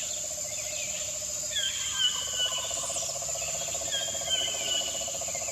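Jungle ambience: a steady high insect drone, a short bird call that falls in pitch, repeated every second or two, and a rapid low pulsing trill that grows stronger about two seconds in.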